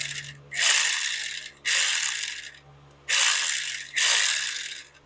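Powered ratchet running in short bursts, driving the starter motor's mounting bolts back in: a brief spin, then four runs of about a second each.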